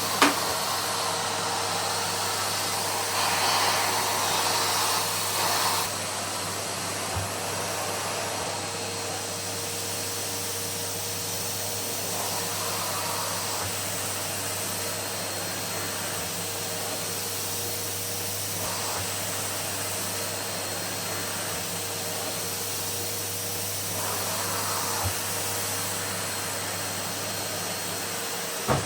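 Numatic cylinder vacuum cleaner running steadily: a constant motor whine over the rush of suction, swelling louder for a few stretches. A sharp click comes just after the start.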